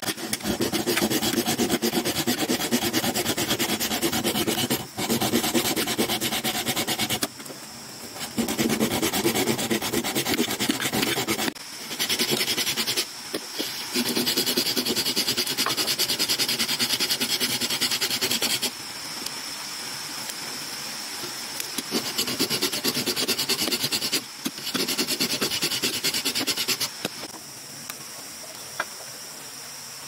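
Rough scraping and scratching of a pointed wooden digging stick and hands breaking up and scooping out earth from a post hole, in bouts of a few seconds with short pauses. Insects buzz steadily behind it.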